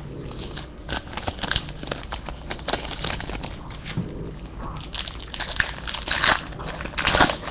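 Shiny foil wrapper of a Garbage Pail Kids Chrome trading-card pack crinkling in the hands, irregular crackles building to the loudest crinkle near the end as the pack is torn open.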